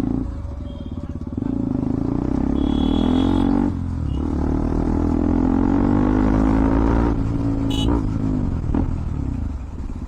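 KTM Duke 200 single-cylinder engine through an aftermarket Akrapovic exhaust with the dB killer removed, accelerating up through the gears. The pitch rises, dips at a gear change about four seconds in, rises again, then falls as the throttle closes about seven seconds in.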